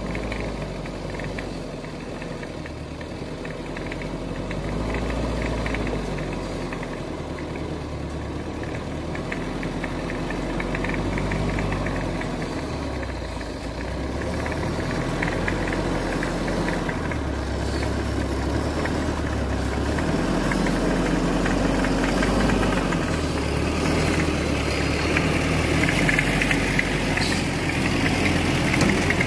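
Engine of a loaded homemade logging truck running on a dirt track, growing louder as the truck comes closer and passes close by near the end.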